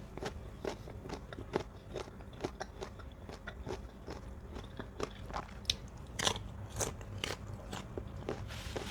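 Crisp bites and chewing of mango slices, with irregular sharp crunches a few times a second, the loudest about six seconds in.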